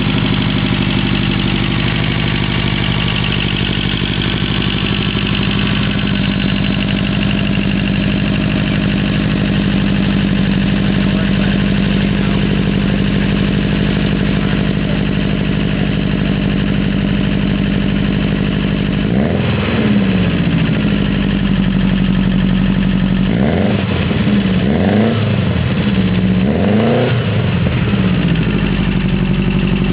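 Freshly rebuilt Ford Mustang engine idling steadily. It revs up and back down once about two-thirds of the way through, then a few quick revs follow near the end.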